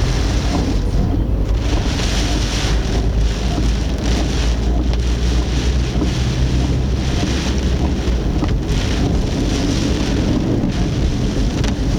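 Typhoon wind and heavy rain battering a car, heard through its dashcam: a loud, steady rush with a deep rumble, rising and falling in quick gusts.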